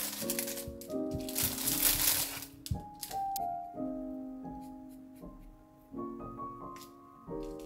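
Clear plastic bag crinkling twice as an orange is pulled out of it, followed by a few light clicks of a knife cutting orange peel on a wooden board, over soft piano background music.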